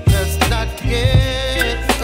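Background music with a heavy bass line and a steady beat, in a hip hop or R&B style.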